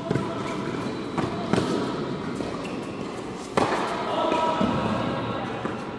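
Tennis balls struck by rackets and bouncing on a hard court during a doubles rally, the impacts echoing in a large indoor hall. There are four sharp hits, the loudest about three and a half seconds in.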